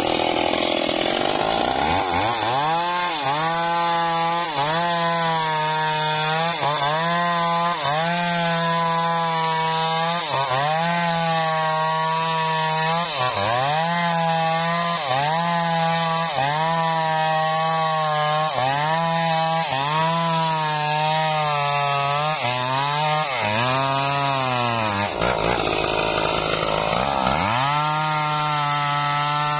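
Stihl chainsaw running at full throttle, cutting through a thick trembesi log. About a second in it revs up, and its engine note then sags under load and picks back up about once a second as the bar works the cut. Near the end it drops off briefly, then revs up again.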